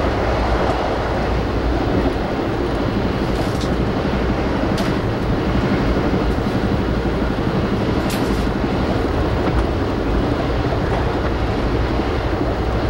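Steady rumble of an Amtrak passenger train riding at speed, heard from inside the coach as wheel and track noise, with a few faint high clicks along the way.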